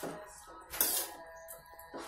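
Metal spatula scraping and clanking against a wok while stir-frying water spinach, with one sharp clank about a second in and a lighter one near the end. Background music with held tones plays underneath.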